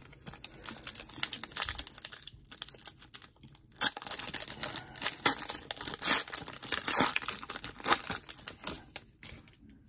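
Foil trading-card pack wrapper crinkling and tearing as it is pulled open, mixed with the flick and rustle of a stack of cards being handled. An irregular crackle with sharp spikes.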